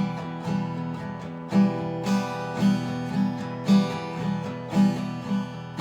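Acoustic guitar strummed in a steady rhythm, about two strokes a second.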